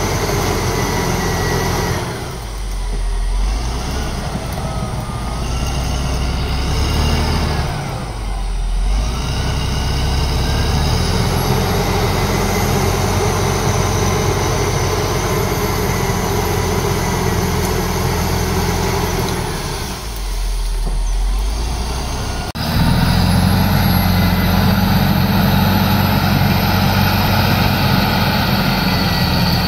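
CAT D7R crawler dozer's diesel engine running hard as the dozer pushes into brush. The engine note sags and recovers a few times, then becomes abruptly louder and steadier about three quarters of the way in.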